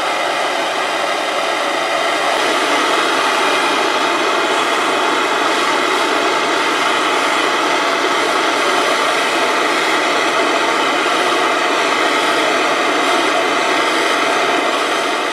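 Blue-flame hand torch on a fuel cylinder burning with a steady hiss while small steel rifle parts are warmed in its flame.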